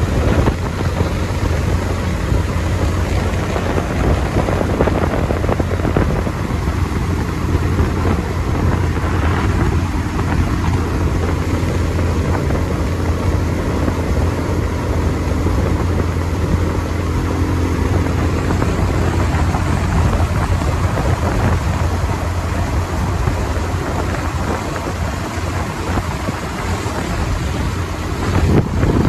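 Bajaj Pulsar 220's single-cylinder engine running steadily at highway cruising speed, mixed with a steady rush of wind on the microphone.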